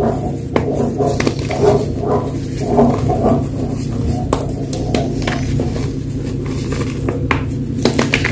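Fresh gym chalk being crunched and crumbled: a run of irregular, crisp crackles and snaps.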